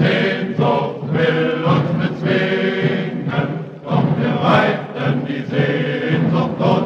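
A choir singing a German Landsknecht song in chant-like style.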